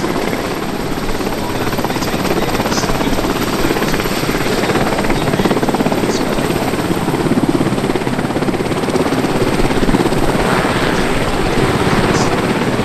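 Westland Sea King helicopter hovering and air-taxiing close by: fast rotor-blade chop over the steady noise of its twin Rolls-Royce Gnome turboshaft engines, loud and continuous.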